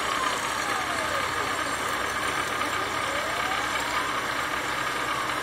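CNC milling machine cutting a metal plate under flood coolant: steady spindle and cutting noise. Over it, the axis motors whine, the pitch falling in the first second and a half and rising again about three seconds in as the table traces a curve.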